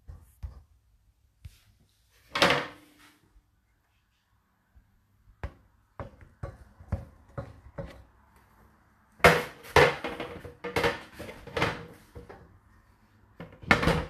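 Irregular knocks, clicks and rattles as a dishwasher's wire rack and plastic dishes are handled. There is a longer rush of noise about two seconds in and a dense run of knocks in the second half.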